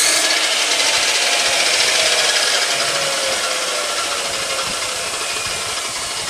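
Electric power saw cutting through a length of pipe. Its pitch sinks slowly and the sound eases off a little as the cut goes on.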